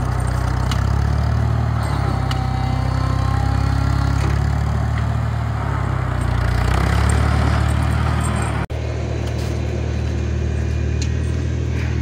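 Loader tractor's engine running steadily while it pushes snow with its rear blade: a low drone that swells a little around six to seven seconds in. The sound breaks off for an instant about three-quarters of the way through.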